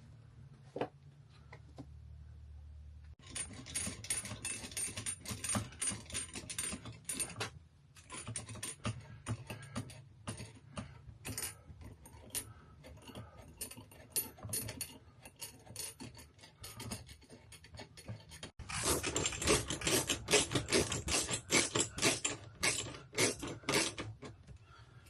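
Clicking and rattling of parts being handled and fitted while the air conditioner's ceiling air duct is installed. There are two busier, louder stretches of clatter, about three seconds in and again near the end.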